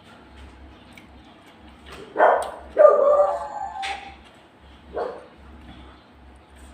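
A dog barking a few times: a quick pair of barks about two seconds in, then a longer one, and another bark near five seconds.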